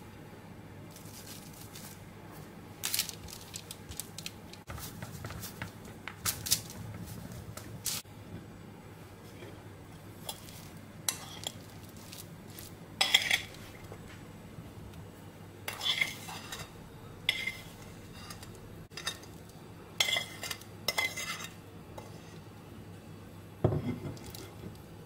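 Metal spoon scraping and clinking against a ceramic bowl while scooping floured diced rhubarb, in irregular clinks and scrapes. Near the end a dull thump as a spoonful of the filling is dropped onto the dough.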